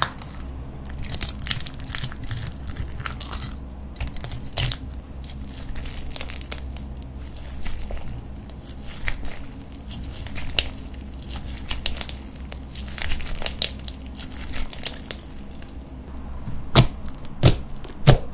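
Glitter slime being handled: scraped out of a plastic container, stretched and squeezed by hand, giving irregular sticky clicks and crackles. The sharpest pops come near the end as fingers press into it.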